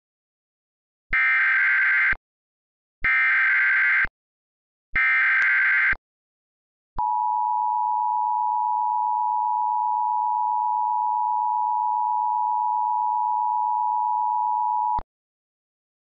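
Emergency Alert System tones: three one-second bursts of the SAME digital header, a rapid warbling data chirp that encodes the alert (here a National Weather Service tornado watch). After them comes the EAS attention signal, a steady two-tone (853 and 960 Hz) alarm tone held for about eight seconds.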